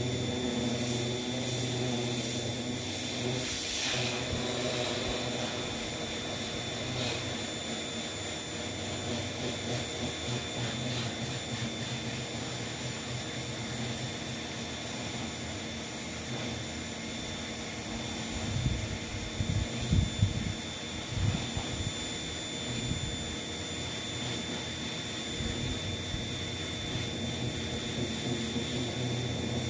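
Pressure cleaner running with its water jet spraying a screen door's mesh and grille: a steady motor drone with a hiss of spray, and a few louder low thuds about two-thirds of the way through. It stops abruptly at the very end.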